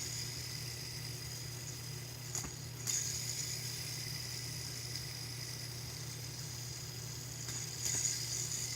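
Fidget spinner spinning on its bearing: a faint, steady high whir over a low, steady hum, with a small click about two and a half seconds in.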